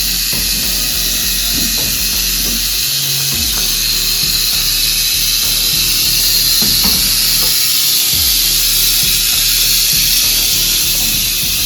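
Rattlesnake rattling: a continuous, even, high buzzing hiss from the tail rattle, the snake's warning while she is handled.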